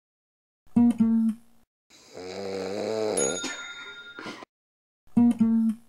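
A man snoring in one long, wavering snore of about two and a half seconds. Short musical notes sound about a second in and again near the end.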